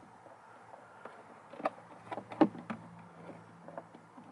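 A few light clicks and knocks of plastic parts as a Kicker speaker is pushed and settled into a Jeep Wrangler JK soundbar housing. The loudest knock comes about halfway through.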